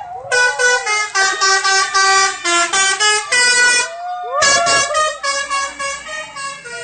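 Telolet musical bus horn playing a quick tune: several tones sound together and change pitch in quick steps, with a short break about four seconds in.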